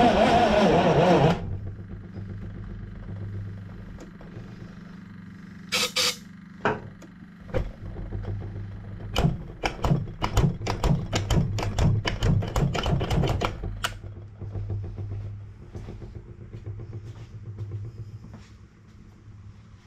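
Hercules ZXB generator engine running loud, then dropping abruptly to a much quieter steady run about a second in. Sharp irregular clicks and pops come through the low hum from about six to fourteen seconds, and the sound fades near the end.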